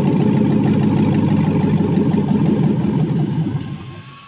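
LS V8 engine in a 1955 Chevy panel truck, idling with a loud, steady rumble, then dying away about three seconds in as it shuts off.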